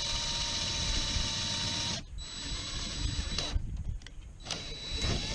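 Electric drill running steadily while boring a hole in the car's painted body, stopping about two seconds in. Near the end it starts again, its pitch rising and then falling as it drills and slows.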